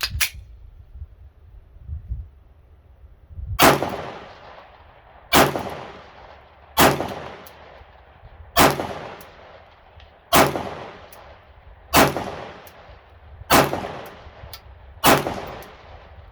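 Glock 19 Gen 5 9mm pistol firing eight slow, evenly spaced shots, one about every one and a half to two seconds, beginning a few seconds in, each followed by a fading echo. The pistol cycles and feeds each round from a Glock 19X magazine without a malfunction. A short click comes just after the start.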